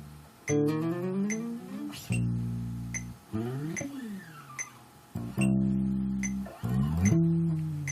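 Electric bass guitar played unaccompanied: plucked notes that ring and fade, alternating with notes slid up and down the neck in swooping pitch glides as a sound effect.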